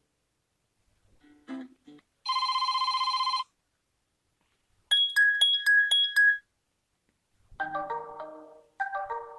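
UMX phone ringtones played one after another: a short buzzing electronic tone a couple of seconds in, a rapid string of high beeps around five seconds in, then a marimba-style melody starting near the end.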